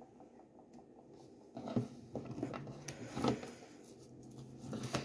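Tarot cards being handled on a wooden table: the deck is picked up and worked in the hands, giving soft scrapes and light taps that start about a second and a half in.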